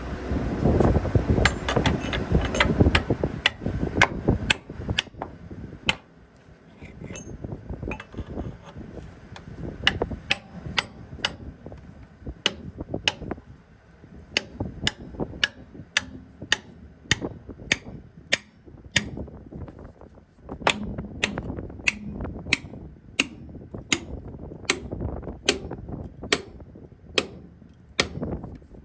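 Hammer striking steel over and over, about one or two ringing blows a second, with a steady low rumble under the first few seconds.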